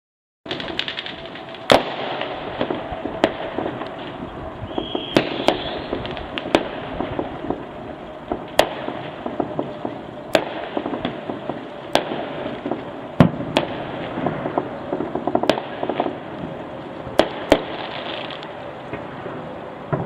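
Fireworks going off: many sharp bangs, one every second or two, over a constant crackling din of more distant fireworks.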